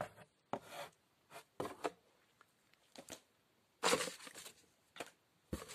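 Paper catalogue in a clear plastic wrap and paper leaflets rustling and crinkling as they are handled in a cardboard box. The sound comes as several short rustles, the loudest about four seconds in.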